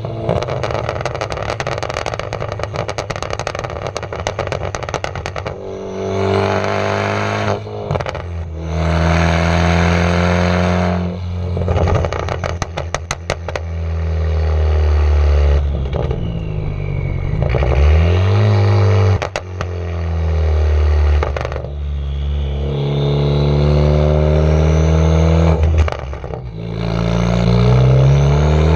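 Straight-piped Ford Focus ST Mk3 with a catless downpipe and muffler and resonator deleted, revving up through pulls and dropping off again. On lift-off the exhaust pops and crackles in rapid runs of sharp cracks, from its stratified pops-and-crackles tune.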